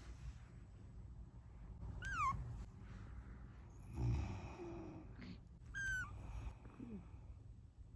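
Kitten mewing twice, two short cries that fall in pitch, annoyed at being woken by snoring. A person snores once about four seconds in.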